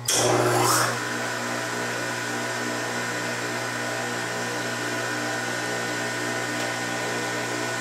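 A three-phase electric motor built onto the spindle of a Yates American J180 planer's cutterhead is switched on at the starter. It comes up to speed with a loud surge and a rising whine over about a second, then runs steadily with a whine and hum, the rotary phase converter that feeds it running too.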